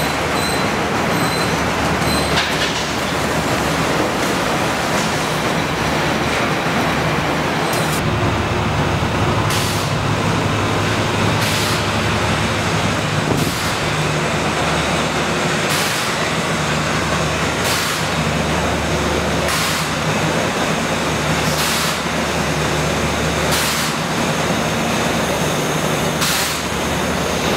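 Loud, steady factory machinery noise with a low hum. From about eight seconds in, a short sharp sound repeats about every two seconds.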